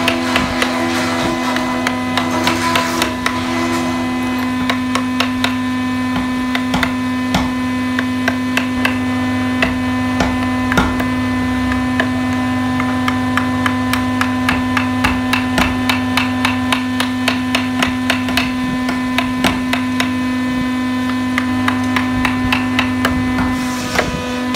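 Wooden mallet tapping a carving chisel into hardwood: short knocks, sparse at first, then several a second. A steady hum runs underneath.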